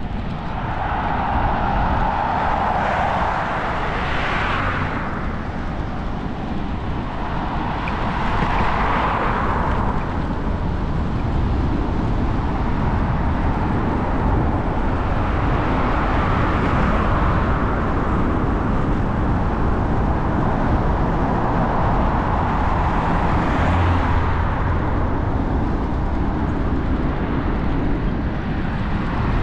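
Road traffic swelling past several times, heard over a steady low wind rumble on the microphone of a camera riding on a moving bicycle.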